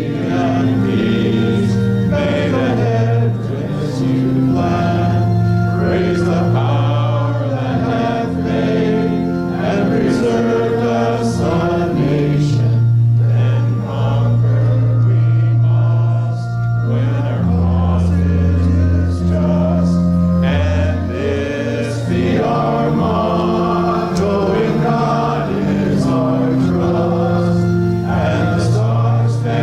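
Congregation singing a hymn in unison and parts, over an accompaniment that holds sustained low chord notes changing every second or two.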